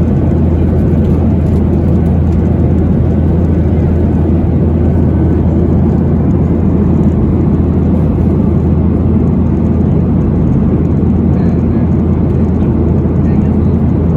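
Steady cabin noise inside a Boeing 737-800 in its climb: the low, even rush and hum of its CFM56-7B turbofan engines and airflow over the fuselage.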